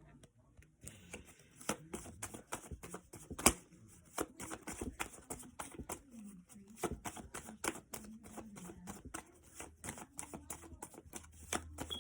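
A deck of cards being shuffled and handled, a rapid, irregular run of crisp card clicks and flicks.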